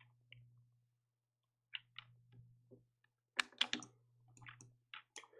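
Faint clicks and taps of computer keyboard keys and a mouse, scattered and irregular, with a denser run of louder key clicks about three and a half seconds in.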